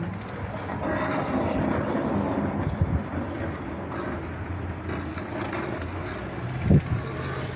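Motor vehicle engine running in a snowy street, a steady low rumble that grows a steadier hum near the end, with wind blowing over it.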